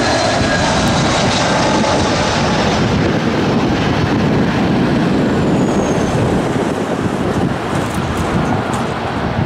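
Airbus A320's IAE V2500 turbofan engines on landing: a loud, steady jet rumble as the airliner flares and touches down, with a faint high whine that fades in the first couple of seconds and the noise easing slightly during the rollout near the end.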